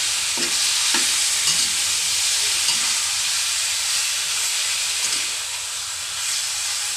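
Pork chunks sizzling in a steel wok while being stirred with a spatula: a steady frying hiss, with a few light scrapes of the spatula against the wok in the first three seconds.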